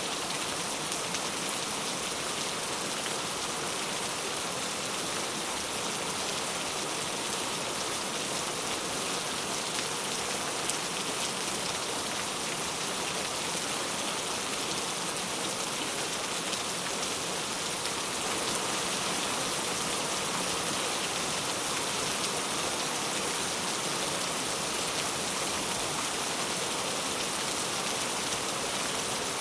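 Steady rain falling on a surface, a dense even hiss of many drops with no distinct individual hits, growing slightly louder about eighteen seconds in.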